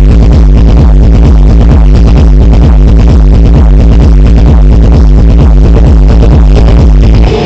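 Loud electronic dance music with a heavy, pulsing bass beat, played through speaker cabinets driven by a Wave Master MT 1601 power amplifier under test. The heavy bass drops out just before the end.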